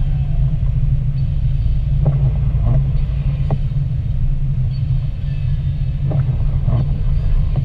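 Steady low rumble of a car driving on a wet, slushy road, heard from inside the cabin, with a few short faint ticks now and then.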